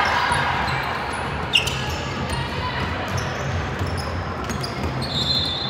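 Basketball game sounds in a gym: a ball bouncing on the court and shoes on the floor over a steady background of crowd noise. One sharp short squeal comes about a second and a half in.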